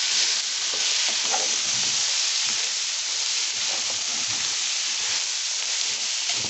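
Freshly added diced tomatoes sizzling as they fry in hot fat with chicken, bacon and sausage in a large metal pot, with a steady hiss. A metal spoon stirs them, giving scattered scrapes and clicks against the pot.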